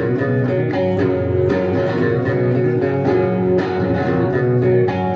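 Live rock song's instrumental passage: guitar strummed in steady chords, with no singing.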